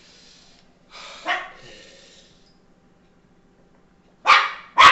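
Dog barking: two short, loud barks about half a second apart near the end.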